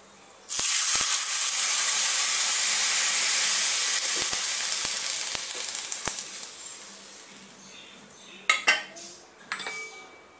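Rasam liquid poured into a small pan of hot tempering oil and spices: a sudden loud sizzle about half a second in that slowly dies down over several seconds. A few light clinks of utensils come near the end.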